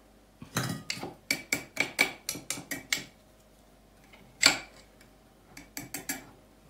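A metal spoon clinking against a glass jar as sliced radishes are spooned and pressed into it. About a dozen quick clinks, each with a short ring, come in the first three seconds, then one louder clink about halfway through and a few more near the end.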